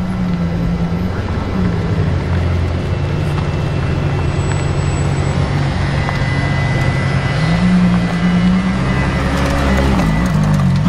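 Ferrari LaFerrari's V12 engine idling with a deep, steady note and a couple of brief, light rises in revs as the car creeps forward.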